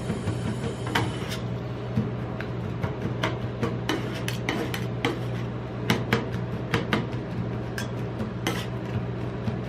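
Two metal spatulas chopping chocolate into ice cream base on a stainless steel rolled-ice-cream cold plate: irregular sharp metallic taps and scrapes of blade on steel, over a steady low hum.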